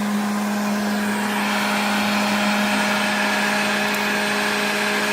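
Heat gun running with a steady electric blower hum and rushing air, used to heat the ends of plastic tubing so they can be spliced into a hoop.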